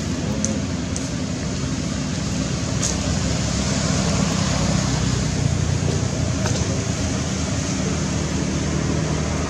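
Steady low rumble and hiss of background noise, with a low hum running under it and a few faint ticks.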